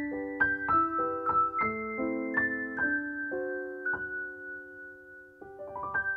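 Background piano music: a gentle melody of single struck notes over held lower notes, about two a second, slowing in the middle and picking up again near the end.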